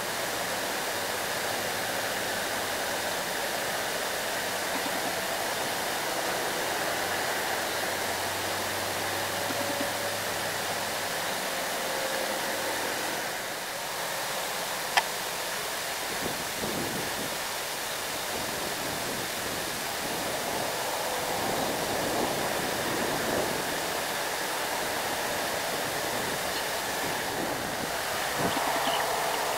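Loaded light trucks' diesel engines heard at a distance as they work through bends on a hill road, under a steady broad hiss. A single sharp click about halfway.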